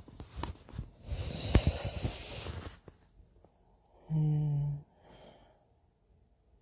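A long breathy exhale close to the microphone, with a few small clicks, then a short, steady hummed "mm" from a man's voice about four seconds in.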